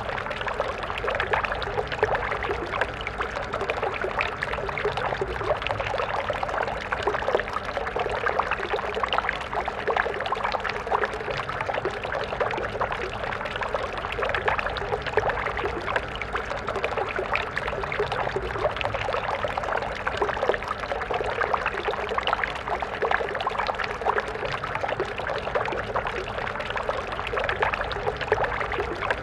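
A stream of water flowing and splashing steadily over stones, a dense babbling with fine splashes throughout.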